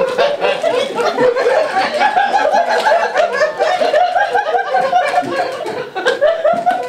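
Laughter: an unbroken run of short, rapid laughing sounds from people's voices, with a brief lull about six seconds in.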